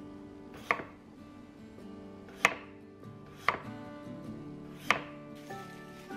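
Santoku knife slicing through a cucumber and striking a wooden cutting board four times at uneven intervals, each a sharp knock. Soft background music plays underneath.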